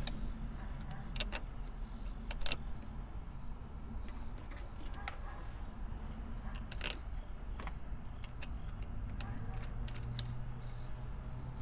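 Metal battery cable ring terminals and terminal hardware clicking and clinking as they are handled and fitted onto a 12-volt lead-acid battery's negative post, with a handful of separate sharp clicks spread through.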